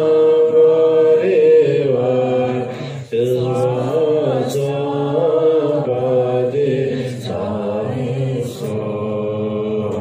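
Two women chanting Buddhist prayers of the Nyungne fast together in long, held tones that waver gently in pitch, with a brief pause for breath about three seconds in.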